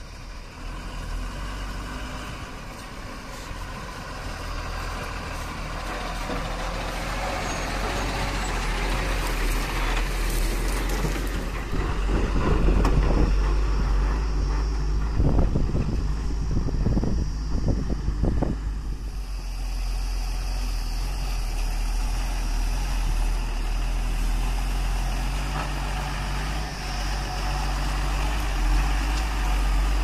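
Diesel engines of loaded Tata tipper trucks running as they drive past on a dirt track. The sound grows louder as a truck approaches and is loudest, with rough surges, for several seconds around the middle, then settles into a steadier engine sound as another truck passes close.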